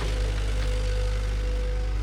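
Bulldozer's diesel engine running steadily with a deep rumble, and a sharp metallic click right at the start.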